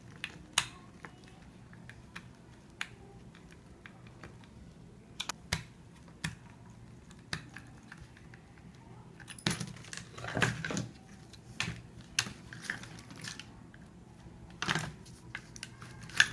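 Small plastic fan parts clicking and tapping as they are handled and fitted together during reassembly of a clip fan, in scattered single clicks with a few quick flurries.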